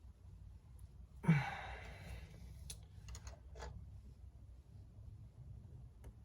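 A man sighs heavily about a second in, a breathy exhale that fades over about a second, followed by a few faint clicks.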